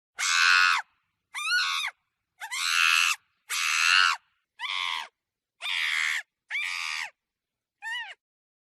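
Monkey screaming: eight short, harsh screams of about half a second each, with gaps between them. The last one, near the end, is shorter and fainter.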